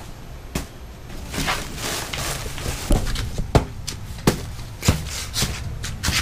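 Footsteps in slide sandals slapping on a concrete patio, one short knock about every half second to a second, over a steady low rumble.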